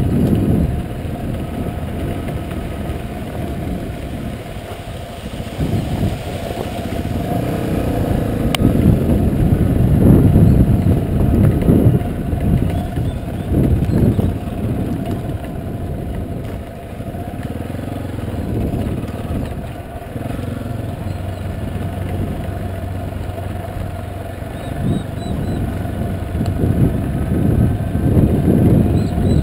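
Yamaha Serow dual-sport motorcycle's single-cylinder four-stroke engine running at low speed on a gravel track, the throttle opening and closing so the sound rises and falls, loudest about ten to fourteen seconds in. A single sharp tick sounds about eight seconds in.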